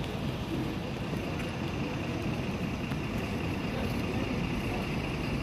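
Steady road traffic noise, with vehicle engines running and a red double-decker bus approaching from down the street.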